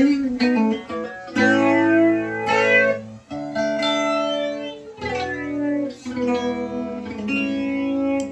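Guitar played through a Zoom MS-70CDR+ chorus/delay/reverb multi-effects pedal: a run of chords strummed and left to ring, a new chord about every one to two seconds.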